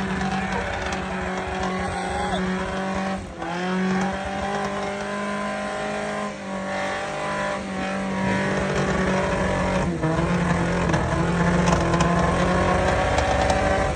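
Off-road Toyota rig's engine revving hard under load on a steep hill climb. The revs drop sharply about three seconds in and again near ten seconds, then climb back up.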